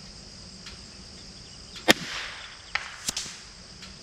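A single .22LR rifle shot about two seconds in, sharp and brief with a short tail, followed about a second later by a couple of quieter clicks. Crickets or other insects buzz steadily throughout.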